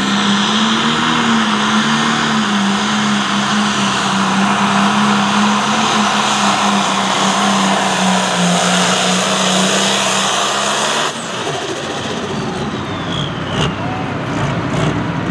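John Deere 4640 Pro Stock pulling tractor's turbocharged diesel engine at full power while pulling the sled, a loud steady drone. About eleven seconds in it drops suddenly to a quieter, rougher sound as the pull ends.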